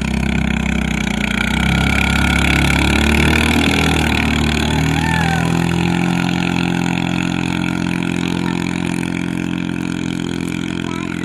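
Racing outrigger boat's engine running at speed as the boat passes, a steady loud engine note that eases slightly as it moves away.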